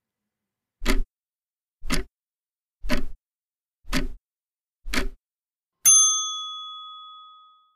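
Countdown sound effect: five clock ticks about a second apart, then a single bell ding that rings out and fades over nearly two seconds, signalling that the thinking time for the question is up.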